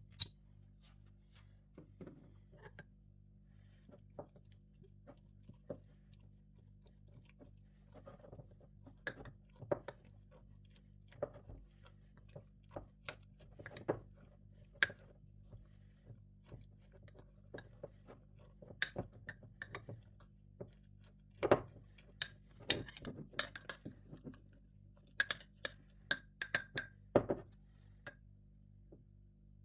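Irregular clicks and light knocks of kitchen handling, such as utensils set down and food being worked, over quiet steady background music. The knocks come more thickly near the end.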